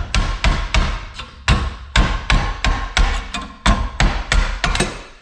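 Hammer blows on a scrap aluminum-copper radiator, knocking off its steel bracket: a quick run of sharp metal strikes, about three a second.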